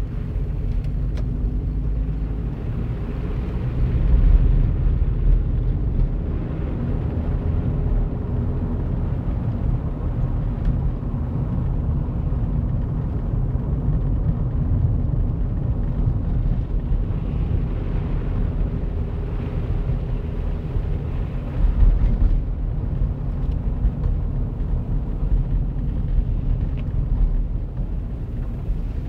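Car engine and tyre noise heard from inside the cabin while driving on snowy, slushy roads: a steady low rumble with the engine note drifting up and down. There are two louder low swells, about four seconds in and again past twenty seconds.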